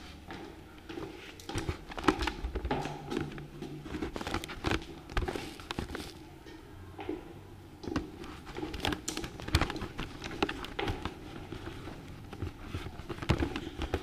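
Irregular knocks, taps and rustling of an action camera being handled and jostled, mixed with footsteps going down a tiled stairwell.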